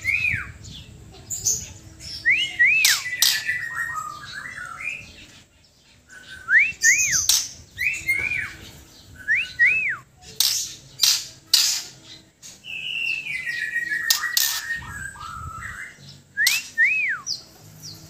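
White-crowned shama calling: loud, sharp clicks mixed with short whistled notes that rise and fall, often in quick pairs, and a few scratchy, falling chattering phrases.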